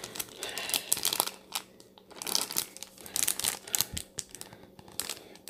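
A clear plastic packet crinkling as it is handled and moved about in the hands, in irregular crackly bursts.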